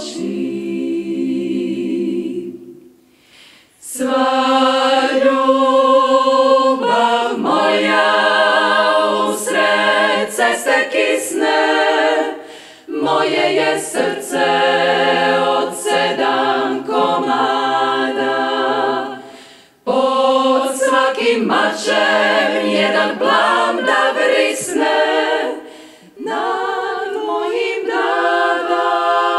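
Women's klapa, a Croatian a cappella vocal group of about ten singers, singing a slow song in close multi-part harmony with no instruments. The held chords waver with vibrato, and the singing breaks off briefly four times between phrases.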